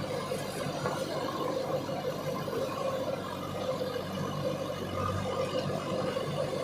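Diesel engine of a JCB 3DX Super backhoe loader running steadily, with a slight rise in its low note about five seconds in.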